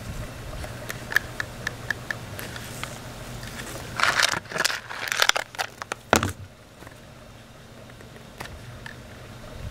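A steady low hum, with a few short high chirps or clicks early on and a loud burst of rustling and crackling in the middle lasting about two seconds.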